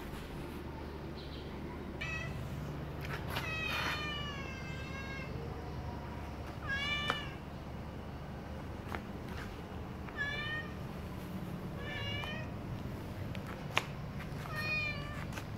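Tabby cat meowing repeatedly, about six calls: one long, drawn-out meow early on, then shorter ones every couple of seconds. A single sharp click sounds late on.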